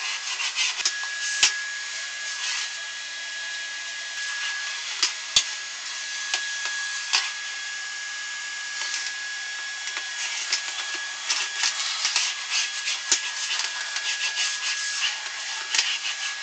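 Floor being wiped with a mop: repeated rubbing and scraping strokes with a few sharp knocks, over a faint steady high tone.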